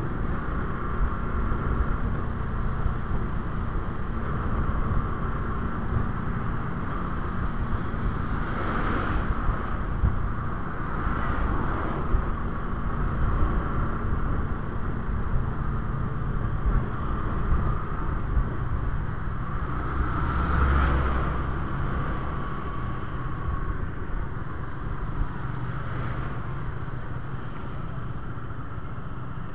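Riding a motorcycle on a wet road: a steady rumble of engine and wind on the microphone, with two brief louder swells, about nine and twenty-one seconds in.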